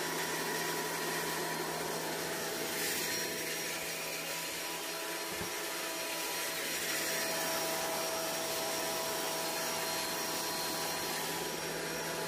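Delta Shopmaster TP300 12-inch portable planer running steadily with freshly changed blades, its motor giving a constant hum with a few steady tones.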